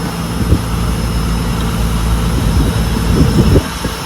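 Fishing boat's engine running with a steady low hum, under an uneven low rumble of wind on the microphone. The rumble drops off sharply about three and a half seconds in.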